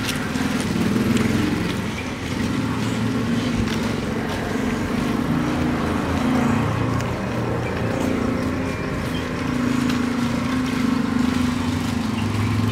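A steady motor hum, like a vehicle engine running, shifting a little in pitch now and then.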